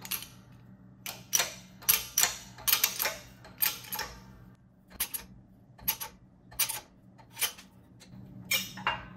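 Hand-pumped hydraulic shop press working slowly: sharp metallic clicks, often in pairs, about one stroke a second, from the bottle-jack pump handle as the ram presses a bearing's outer race into an aluminium overdrive housing.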